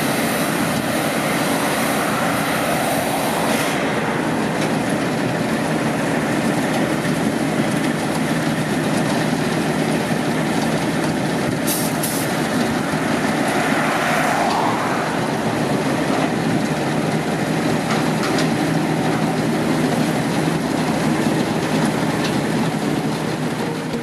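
Engine of a tracked rice combine harvester running loudly and steadily, with a metallic rattle, as the machine is worked into place on a lowboy trailer deck.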